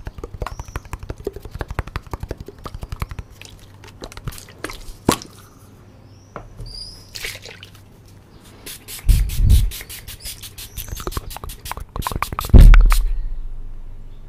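Fingertips and nails tapping and scratching on a clear plastic bottle held right against the microphone, first in a fast dense patter, then in sparser clicks. About nine seconds in and again about twelve and a half seconds in there is a loud low thump close to the microphone, the second one fading slowly.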